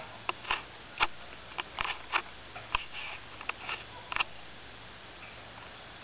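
Dry twigs and leaf litter crackling and rustling as an animal roots about in the undergrowth: about a dozen short crackles over roughly four seconds, stopping about four seconds in.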